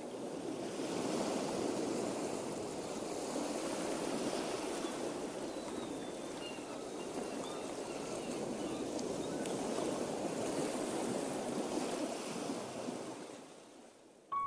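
Wind-driven waves washing on open water, a steady rushing noise that swells in the first second and fades away near the end.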